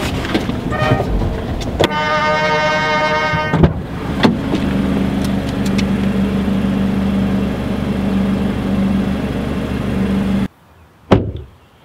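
Car sounds: a pitched car-horn blast about two seconds in, lasting a second and a half, then a steady low engine hum that cuts off abruptly near the end, followed by a single click.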